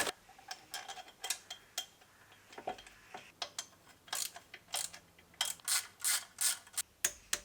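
Ratchet wrench clicking in short, irregular runs as bolts are run in and tightened, with light metallic clinks of tools and parts.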